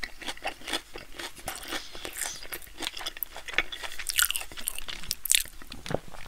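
Close-miked chewing of a breaded fried pickle spear: irregular, crisp crunches of the fried batter, a few louder ones about four and five seconds in.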